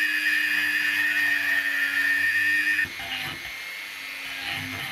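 Handheld rotary tool running at a steady high whine while grinding out the plastic bearing seat of a belt sander's housing to enlarge it for a shim sleeve. The whine stops abruptly about three seconds in, leaving a quieter, lower whir.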